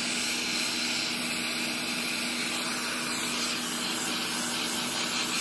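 Hand-held gas torch burning with a steady, noisy hiss as its flame heats a small steel pot of melted Cerrobend low-melting bending alloy.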